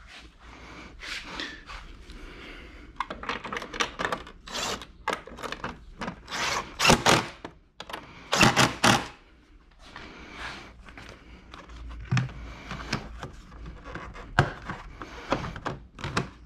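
Plastic fairing panels being pressed and clipped back into place, with many clicks and knocks, and a cordless drill-driver running screws in, loudest in two short bursts near the middle.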